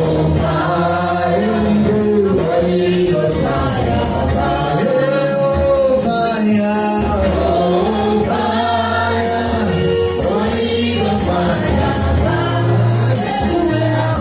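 Gospel worship music: voices singing together in long, gliding held notes over a steady bass line.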